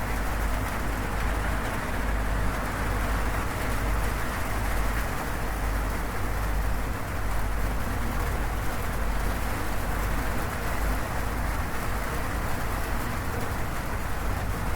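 Steady rain falling on a corrugated zinc roof, a dense even patter with a deep low rumble underneath.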